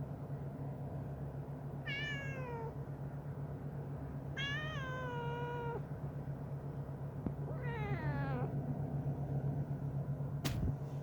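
A cat meowing three times, each call falling in pitch, the middle one the longest. A sharp click near the end.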